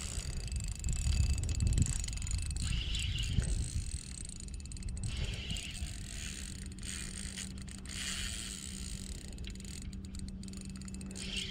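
Spinning reel working under load, its gears and drag ticking and whirring in bursts as a large fish, a mulloway, is played on light bream tackle, with low wind rumble on the microphone in the first few seconds.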